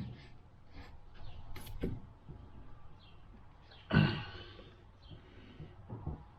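Hand tools clicking and knocking against the corroded pivot nut of rusted hand pruners as it is worked at, with one louder, short strained sound about four seconds in.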